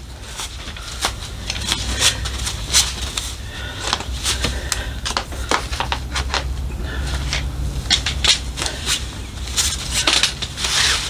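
Irregular clicks, clacks and knocks of a folding camping cot being assembled: the leg hooks are hooked onto the side bars and bent into place one after another, with rustling of the cot fabric. A low steady hum runs underneath.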